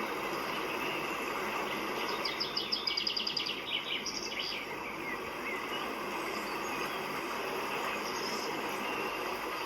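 Steady outdoor rushing noise with a bird singing a quick trill of repeated high notes about two seconds in, followed by a few short chirps.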